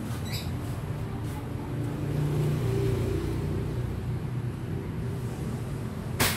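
Steady low hum of running kitchen machinery, swelling slightly in the middle, with one sharp click near the end.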